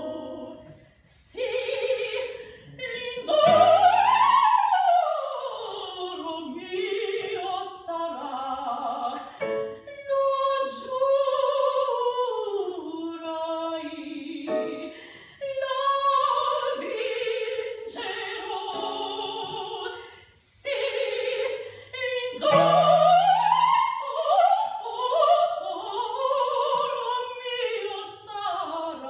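A woman singing an opera aria in full operatic voice: long notes with vibrato and fast runs sweeping up and down, broken by short pauses for breath.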